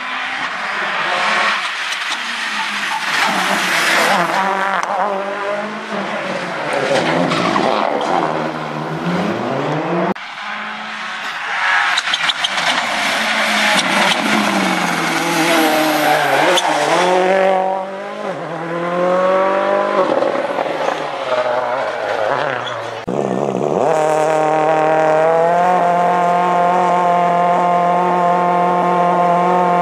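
Rally cars driven hard, engines revving up and falling back repeatedly through gear changes, with sudden changes about a third and three quarters of the way in. Over the last few seconds one engine holds a steady high pitch.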